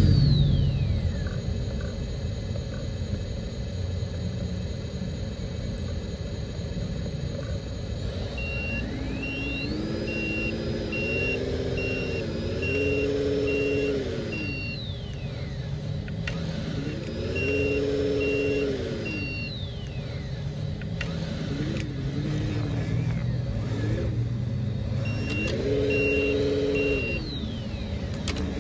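Electronic diesel-engine sound from the RC dump truck's Lesu sound module, revving up and back down about four times, with a high whine rising and falling with each rev. Evenly spaced reversing beeps sound during three of the revs.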